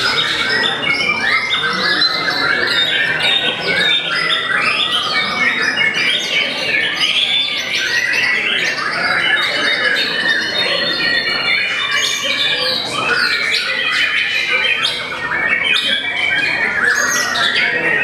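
White-rumped shama (murai batu) singing a continuous, rapid, varied song of chirps and whistled phrases.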